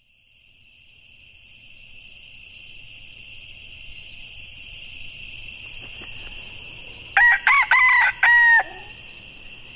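A rooster crows once, in several arching syllables, about seven seconds in. Beneath it runs a steady high-pitched background drone that fades in from silence.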